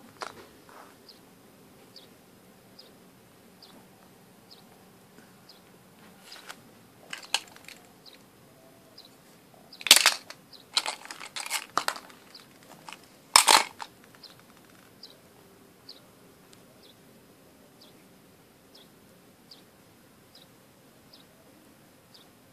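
Hard plastic toys clattering and knocking together as they are picked up and handled on a wooden floor, a cluster of sharp clacks around the middle. Behind it a faint short high chirp repeats regularly, a little faster than once a second.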